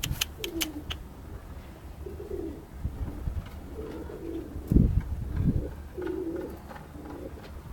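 Domestic pigeons cooing: a series of short, low, wavering coos. A run of sharp clicks in the first second and a low thump about halfway through.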